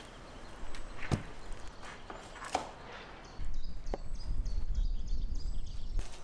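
A large knife cutting through frozen salmon steaks on a plastic-covered table, giving a few sharp knocks. From about halfway there is a louder low rumble lasting a couple of seconds.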